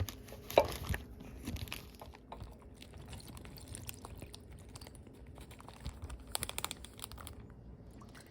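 Small parts of a Puffco Proxy vaporizer being handled and set down on a cloth: light clicks, knocks and rustling. There is a sharp knock about half a second in and a quick run of clicks around six to seven seconds in.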